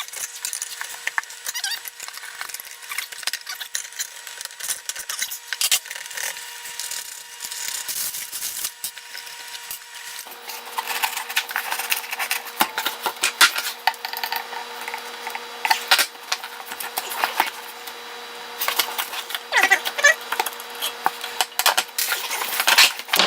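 Crescent wrench working the locked-down nuts that bolt a knife grinder to its plywood shipping base: irregular metal clicks, scrapes and knocks, busier in the second half.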